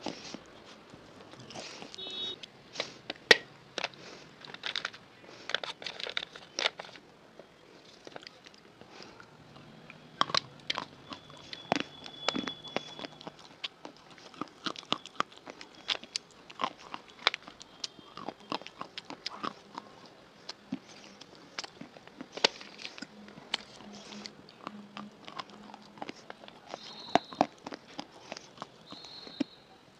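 Close-miked crunching and chewing of hard, dry mineral snacks (baked-clay biscuits and chalk sticks): irregular sharp bites and gritty crackles, the loudest bite about three seconds in.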